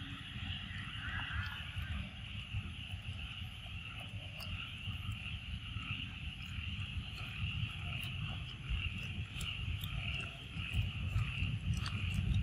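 Forest ambience: a steady high insect drone with a low rumble beneath it.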